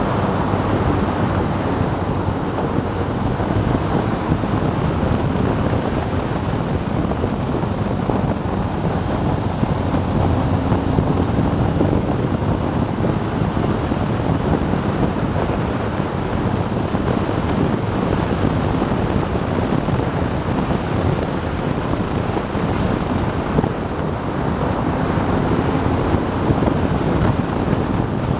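Steady wind rushing over the microphone of a BMW R 1200 GS Adventure motorcycle at road speed, with its boxer-twin engine faintly underneath, its pitch drifting up and down a little.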